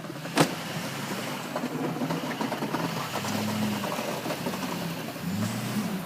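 A vehicle engine running steadily, swelling up a couple of times, with a sharp click or knock about half a second in.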